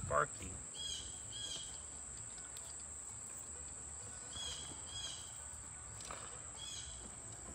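Steady high-pitched insect drone, with a bird giving short chirps, two pairs and then a single one.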